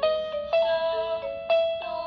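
Simple children's tune in bright, bell-like notes, each note struck and fading, about two a second.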